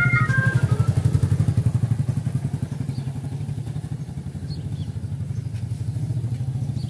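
Motorcycle engine running with a rapid, even chugging, easing off after about two seconds and settling to a steady idle as the bike pulls up.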